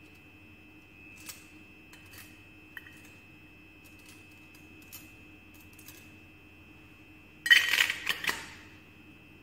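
Glass pipettes clinking and rattling against each other and a stainless steel pipette canister as one is drawn out. A few faint clicks come first, then a brief loud clatter about three-quarters of the way through.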